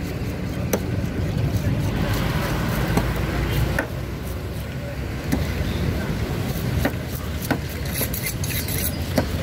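Steady low rumble of street traffic, with irregular sharp clicks and taps as a large knife cuts along a whole tuna on a wooden board.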